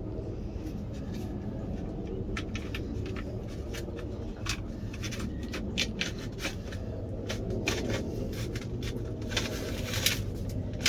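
Irregular clicks, taps and scrapes of plastic and wiring being worked through a steering column, growing busier toward the end, over a steady low hum.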